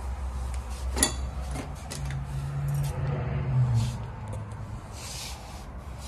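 Handling noise with light clicks and clinks, a sharp click about a second in, over a low hum that weakens after the first couple of seconds.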